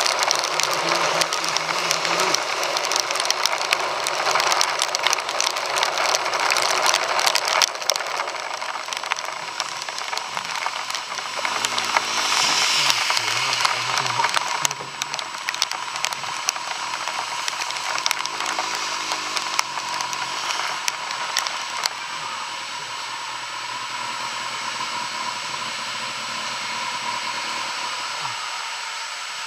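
Wind and rain rushing and crackling over the microphone on a moving motorcycle, with the Kawasaki ZX-6R's inline-four engine faintly underneath. The rush eases to a steadier, quieter hiss in the second half.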